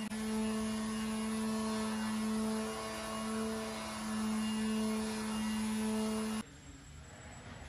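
A steady humming tone of fixed pitch with overtones, over a faint hiss, cutting off abruptly about six and a half seconds in.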